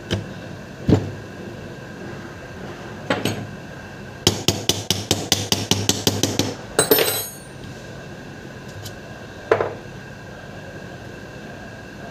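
Sharp metallic clicks and knocks of a spanner working the housing bolts of a car starter motor, with a quick, even run of about a dozen clicks in the middle, then a short cluster and a single knock.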